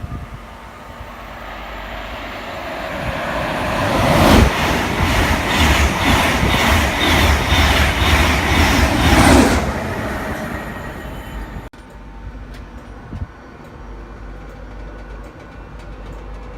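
Train passing at speed, its wheels clicking over the rail joints in an even beat. It builds up, stays loud for about five seconds, then fades.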